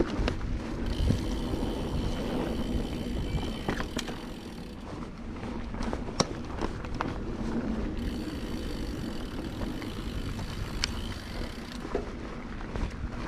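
Mountain bike ridden along a dirt trail: tyres rolling over the ground, with scattered sharp knocks and rattles from bumps. A faint high steady whine comes in twice, for a few seconds each.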